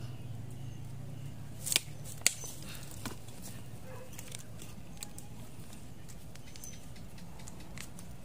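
Cooking oil heating in a steel wok over a clay charcoal stove, with scattered faint ticks over a low steady hum. Two sharp clicks about half a second apart come about two seconds in.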